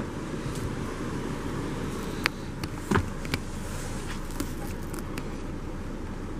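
Handheld camera handling noise: a steady hiss with a few short knocks and clicks about two to three and a half seconds in, as the camera is moved around inside a car's cabin.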